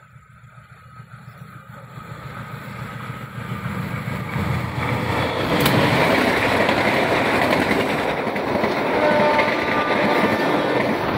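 KA Bangunkarta passenger train approaching and then passing close by. The sound builds steadily over the first six seconds, then the coaches roll past with steady wheel-on-rail running noise. A sharp click comes just before it peaks.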